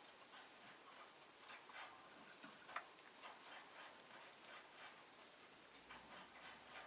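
Faint, irregular small clicks and taps from a rosy-faced lovebird, with one sharper click almost three seconds in.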